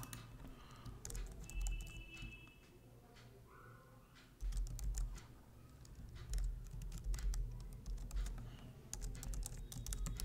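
Typing on a computer keyboard in irregular bursts of keystrokes, with a low thumping underneath from about four seconds in.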